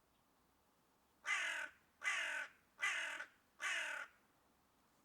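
Crow cawing: four harsh caws in a steady series, each about half a second long.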